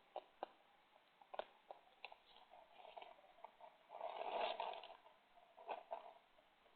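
Faint sounds of a raccoon and an opossum feeding: scattered sharp clicks and crunches of eating, with a longer scratchy rustle about four seconds in.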